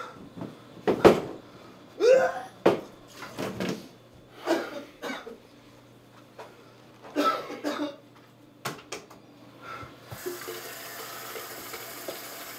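A man coughing and gasping in short bursts, with several sharp knocks among them. About ten seconds in, a steady rushing hiss starts suddenly and keeps going.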